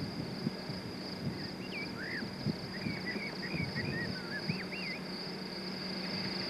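Meadow insects chirring steadily at a high pitch, with a bird singing short whistled phrases in the middle, over a low rumbling noise.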